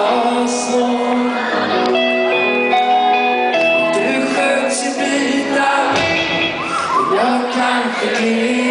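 Live rock band performance recorded from the audience in a concert hall: a male lead singer singing in Swedish over electric guitar and the band.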